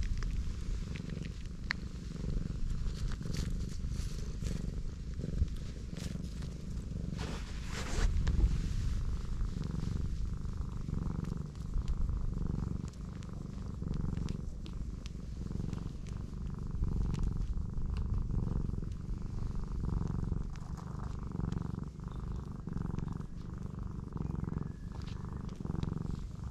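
Black cat purring steadily while being stroked under the chin and on the head. A few brief rustles break in, the loudest about eight seconds in.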